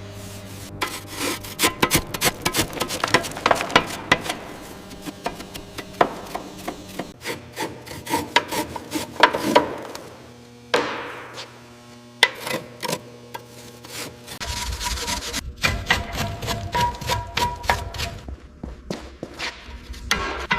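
Scraping rust and scale off old steel by hand, many quick irregular rasping strokes.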